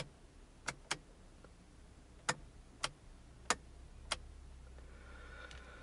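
About seven sharp, separate clicks from the Hyundai Getz's turn-signal controls at the steering column, a pair near the start and then four at a fairly even pace; the steering-column switch is sticking.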